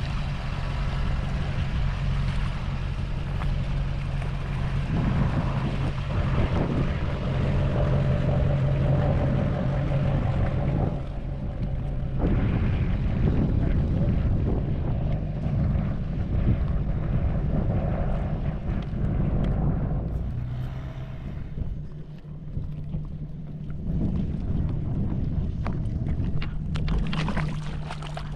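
An engine running steadily with a constant low hum, easing off for a few seconds past the middle, with wind on the microphone. Near the end, water splashes around wading feet.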